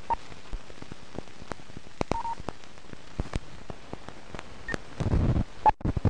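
Old film-leader countdown effect: the hiss of a worn film soundtrack, crackling with irregular clicks and pops, a few short beeps, and a brief rumble about five seconds in.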